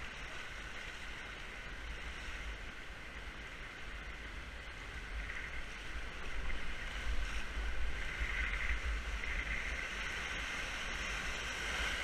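Rushing whitewater of river rapids around a raft, a steady noise of water that grows louder about halfway through, with a low rumble of wind on the microphone underneath.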